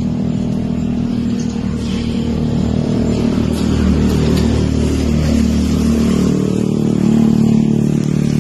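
Motor vehicle engine running steadily, its low hum growing somewhat louder partway through.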